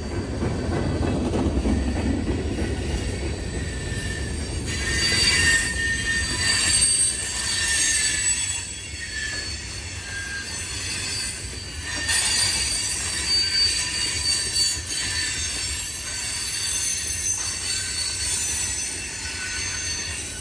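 Freight train rolling past, its wheels squealing in high, on-and-off tones over a low rumble from the cars; the rumble is strongest in the first few seconds.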